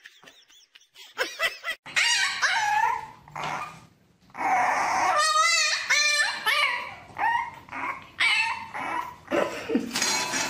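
French bulldog puppy whining and howling in a run of high, wavering cries, with a fast warbling cry about halfway through.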